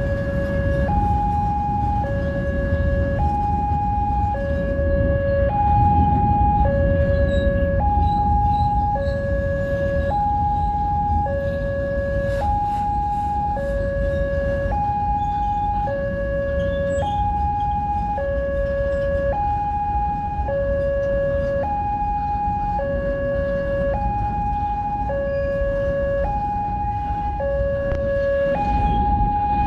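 Electronic level-crossing warning alarm sounding a steady two-tone signal, a low tone and a high tone alternating about once a second, while the crossing is closed. Under it, a long container freight train rolls past with a continuous low rumble of wheels on rail.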